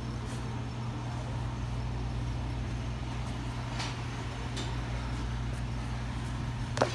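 A steady low mechanical hum, with a few faint scuffing steps of leather boat shoes on a hard terrazzo floor; the sharpest step comes near the end.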